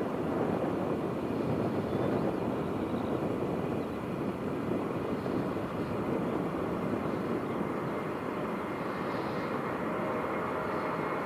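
Engines of a wide-body jet airliner, a steady dense rumble that eases slightly after about four seconds.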